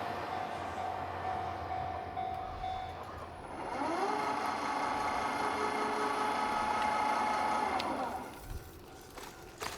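Motor whine at a railway level crossing just after a train has passed: a steady hum fades out, then a whine rises, holds for about four seconds and falls away.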